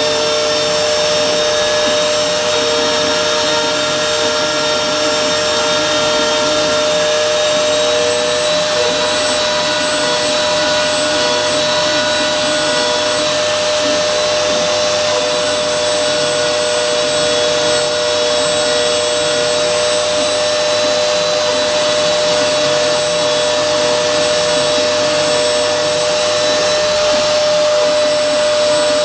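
CNC router spindle running steadily at high speed while milling: a constant high whine with a second tone that wavers slightly.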